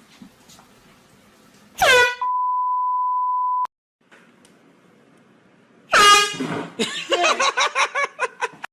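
An air horn blasts about six seconds in, followed by a person's startled cries in quick, broken bursts. Earlier, a sudden loud sound falls in pitch into a steady high beep lasting about a second and a half that cuts off abruptly.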